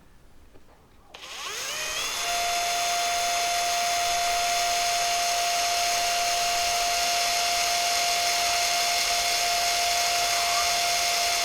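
Electric drill starting about a second in, its whine rising and then running steady while it drills a small hole through a flattened metal pipe strap.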